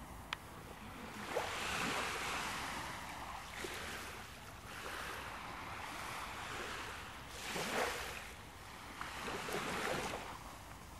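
Ocean surf washing in slow, uneven swells, each wave rising and falling over a second or two.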